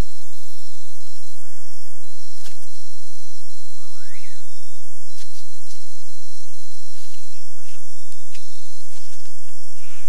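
Tropical forest insect chorus: a steady, shrill high hiss with a thin high trill that starts and stops every second or so. A few faint short calls, one rising and falling about four seconds in, and scattered light clicks.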